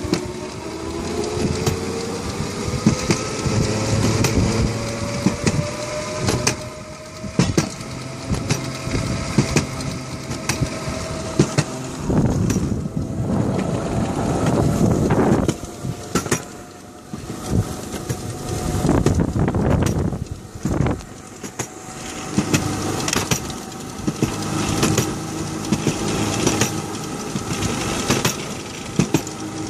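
Home-built electric rail kart running on its two 500 W electric motors: the motor whine rises in pitch as it picks up speed in the first few seconds, then holds steady. Sharp clicks and knocks come from the wheels on the old rails, with bursts of rushing noise now and then.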